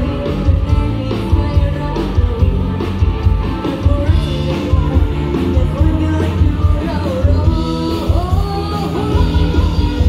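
Loud rock music with a singing voice and strong bass, blaring along a nightlife street.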